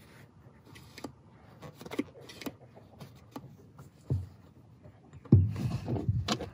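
Hands working the action of an AEA HP SS PCP air pistol: a series of small metallic clicks, then a heavy knock about five seconds in, followed by low rumbling handling noise.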